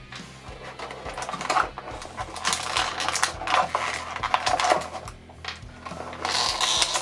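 Clear plastic blister packaging crackling and crinkling in irregular clicks and rustles as hands pull an action figure and its small accessories out of the tray.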